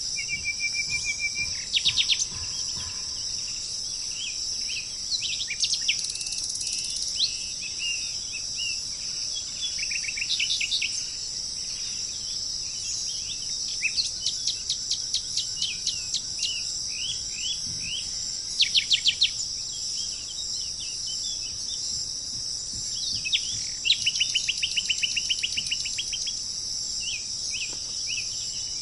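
Wild birds calling over a steady, high insect drone. There are fast trills of rapid sharp notes, repeated every few seconds, with short chirps and whistled notes in between.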